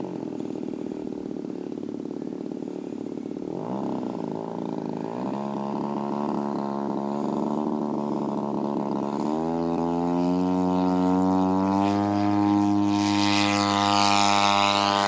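Small single-cylinder engine of an RC model Hurricane warplane running with its propeller, the throttle opened in steps so the pitch climbs about 5, 9 and 12 seconds in. It grows louder, with a rush of propeller and air noise over the last two seconds as the model goes to full power for its takeoff run.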